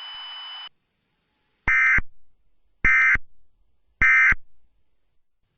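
Emergency Alert System end-of-message signal: three short, identical bursts of SAME digital data tones, a harsh two-tone warble, a little over a second apart. Before them, a steady hiss with a thin high tone cuts off under a second in.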